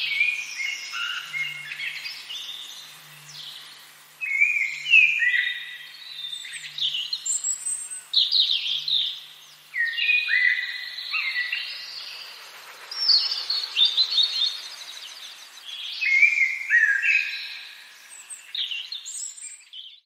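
Several songbirds singing and chirping, with overlapping phrases of short whistled notes, downslurred chirps and quick high trills that come in bursts with brief pauses between.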